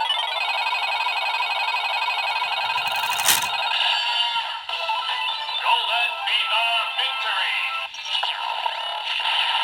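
Bandai DX Fever Slot Raise Buckle on the Desire Driver toy belt playing its electronic slot-roulette music through its small tinny speaker, with a sharp plastic clunk about three seconds in, followed by a sung electronic announcement. It lands on the jackpot result, 'Golden Fever Victory'.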